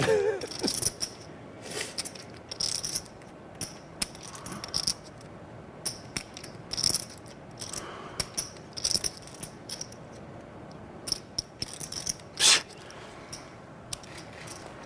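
Poker chips clicking in irregular little runs as a seated player handles and riffles them at the table, with one louder clack about twelve seconds in.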